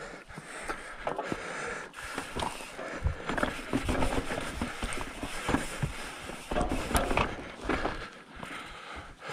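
Mountain bike riding down a rocky dirt trail: tyres crunching over dirt and stones, with irregular knocks and rattles from the bike, busiest in the middle.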